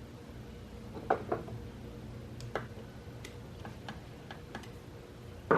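Scattered sharp clicks and light knocks: a pair about a second in, a single click a little later, a few faint ticks, then a louder knock right at the end.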